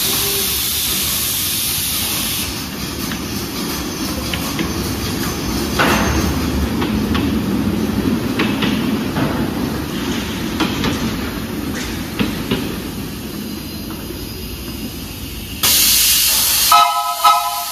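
Home-built 1:8 scale, 7¼-inch gauge live steam locomotive running on compressed air: hissing air exhaust over a rumble of the wheels on the track, with scattered clicks. The hiss is loudest at the start and again near the end, and music comes in just before the end.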